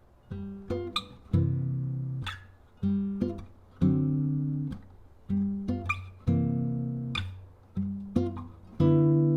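Intro music on acoustic guitar: a short phrase of a few plucked notes, each time ending on a strummed chord left to ring out, repeated about four times.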